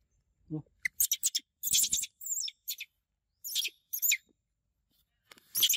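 Baby monkey squeaking and squealing in short, very high-pitched bursts, after a brief lower call about half a second in; the squeaks cluster about one to three seconds in, again around three and a half to four seconds, and once more near the end.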